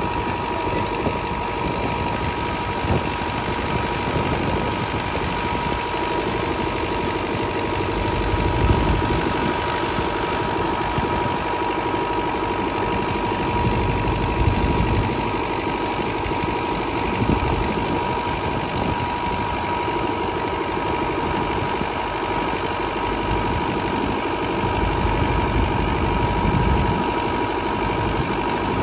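New Holland tractor's diesel engine running steadily as it drives a tubewell pump through its PTO shaft, with the 14-inch delivery pipe gushing water into the channel. A steady high whine sits over the engine.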